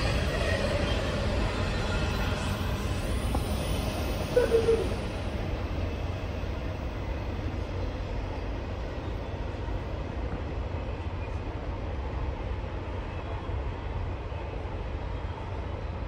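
Intermodal container freight train rolling away over the rails, its noise fading over the first few seconds. A brief squeak comes about four seconds in, then a steady low rumble stays on.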